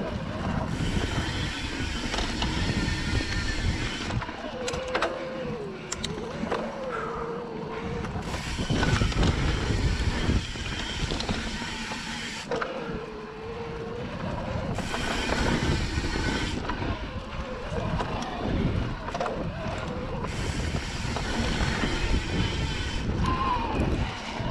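Santa Cruz Heckler electric mountain bike riding dirt singletrack: knobby tyres rolling and rattling over the trail, with the e-bike motor's thin whine wavering up and down in pitch.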